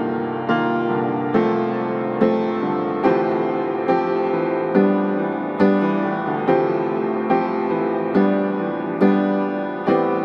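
Background piano music: notes or chords struck about once a second, each fading before the next.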